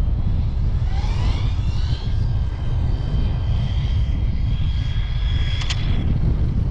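Brushless electric motor of an Arrma Limitless V2 RC speed car whining on a speed run: the pitch climbs for about a second, then holds a steady high whine for about four seconds. Heavy wind buffets the microphone throughout, with a single click near the end.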